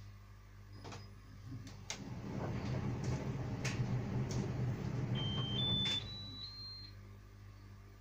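Electrolux tumble dryer drum turning for about four seconds, clothes tumbling with a low motor rumble and scattered clicks of buttons or zips against the drum. As the drum stops, four short beeps play, each higher than the last: the dryer's end-of-cycle signal.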